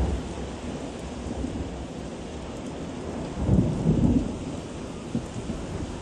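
Storm wind buffeting the microphone as a continuous low rumble, swelling into a stronger gust about three and a half seconds in.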